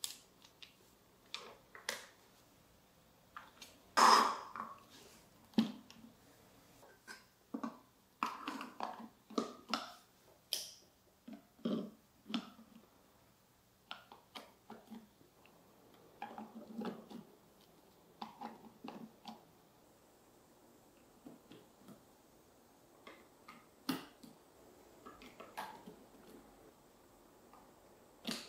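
Hard plastic marble run pieces handled and snapped together: irregular clicks and knocks with some rubbing of plastic on plastic, the loudest knock about four seconds in.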